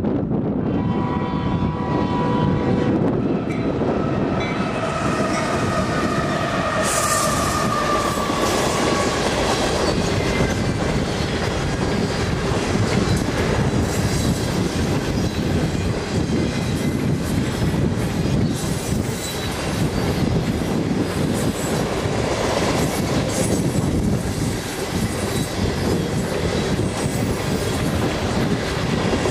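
Union Pacific freight train passing close by. In the first several seconds the locomotives go by with a tone that falls in pitch. Then a long string of refrigerated boxcars rolls past with a steady rumble and the clickety-clack of wheels over the rail joints.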